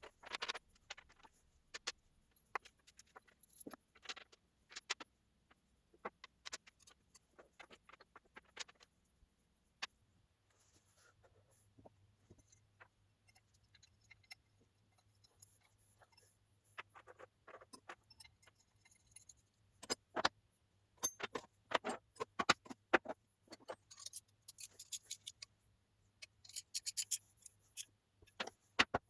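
Scattered light clicks and knocks of metal parts and tools being handled, irregular and coming thicker in the second half, over a faint low hum.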